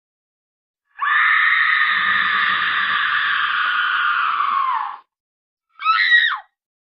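A loud, high-pitched scream sound effect held for about four seconds, dropping in pitch as it cuts off, followed by a short, falling second cry near the end.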